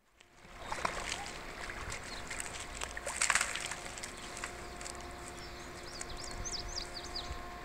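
Riverbank ambience: a steady mechanical hum holding a few fixed pitches, with a few short splashy knocks, the loudest about three seconds in. A bird chirps a string of short notes near the end.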